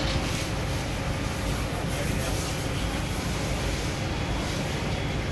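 Steady mechanical rumble with a hiss over it, even throughout with no distinct knocks or tool strikes.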